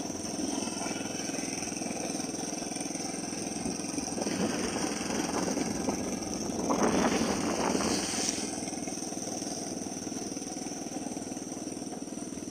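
Motorcycle engine running steadily while riding, with road and wind noise; the sound swells for a few seconds around the middle.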